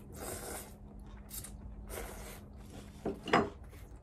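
A person eating up close with chopsticks from a small plate: several soft bursts of mouth and breath noise, then a short, sharper and louder sound a little after three seconds in.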